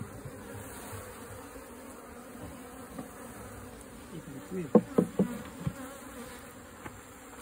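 Honeybee colony buzzing steadily, with a few brief, louder sounds a little past the middle.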